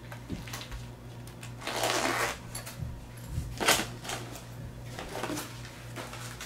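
Handling noises of gear being packed: a short rasp about two seconds in as the round zippered gun-cleaning-kit case is closed, then rustling and a couple of sharp clicks as items are moved about in a nylon backpack.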